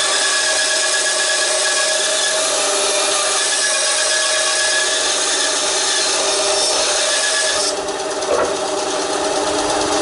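WEN BA3959 9-inch benchtop band saw, its 2.8-amp belt-driven motor running steadily as the blade cuts through a firewood log with a rasping sound. The cutting noise eases briefly about eight seconds in, followed by a single short knock.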